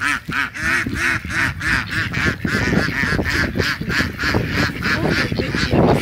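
A flock of mallards and white domestic ducks quacking, a fast run of loud quacks at about three to four a second, several birds calling over one another.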